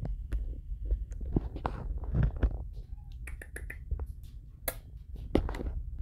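Handling noise from a phone being moved while filming: a low rumble with scattered clicks and taps.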